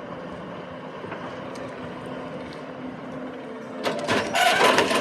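Heavy machinery engine running steadily, then about four seconds in a loud, harsh rush of noise for about a second.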